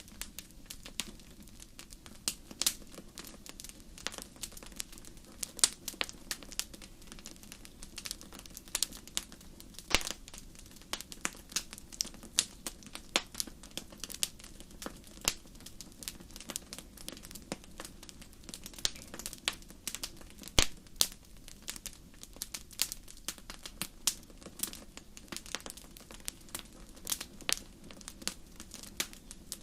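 Wood fire crackling and popping: irregular sharp snaps, a few at a time, over a low steady rumble of the burning fire.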